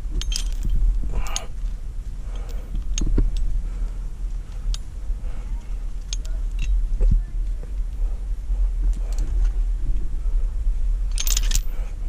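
Steel carabiners and anchor hardware clinking and jangling as a climbing rope is handled at the anchor, over a steady low rumble. A quick cluster of clinks comes near the end.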